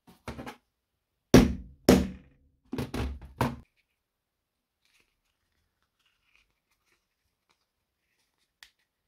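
Hammer striking a hollow punch to stamp bolt holes through gasket sheet on a wooden board: a few light taps, then two heavy blows about half a second apart, then a quick run of four more strikes; a single faint click near the end.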